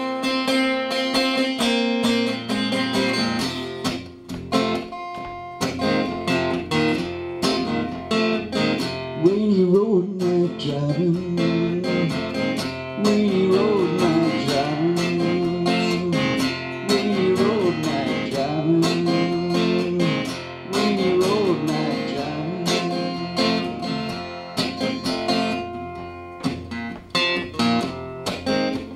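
Acoustic guitar strummed and picked through an instrumental break in a folk-style song. From about nine seconds in, a wordless wavering vocal melody runs over the chords for some thirteen seconds.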